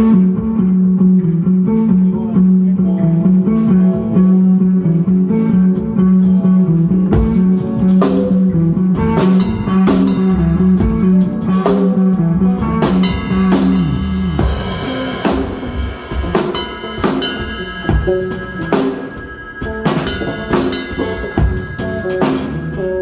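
Rock band playing live without vocals: drum kit with snare and bass drum hits under electric guitars and bass guitar. A pulsing low note dominates for the first half, then higher guitar notes take over about halfway through.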